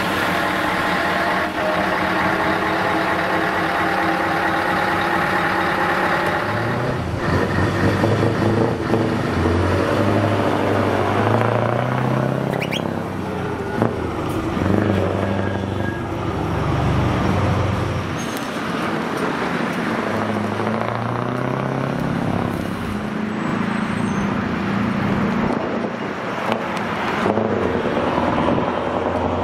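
Scania 164L's V8 diesel with an open exhaust pipe, running steadily at first and then pulling away under load. Its pitch rises and drops back several times as it shifts up through the gears.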